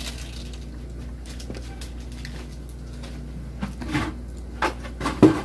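A steady low hum, with a few short knocks and clicks in the last two seconds.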